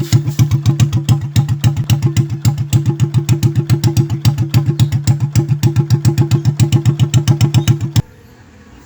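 Carbureted RS125 motorcycle's single-cylinder engine idling through a new aftermarket muffler, an even exhaust beat of about ten pulses a second. It cuts off suddenly near the end.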